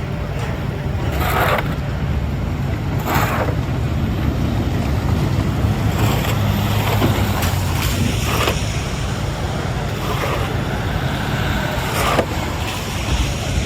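City street traffic on snow-covered roads: a steady low rumble with tyres swishing through wet slush as vehicles pass.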